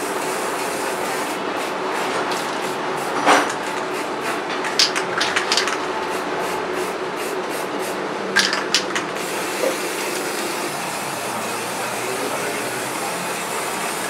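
Aerosol spray paint can hissing steadily as black paint is sprayed onto a refrigerator compressor shell, with a few sharp clicks in the middle.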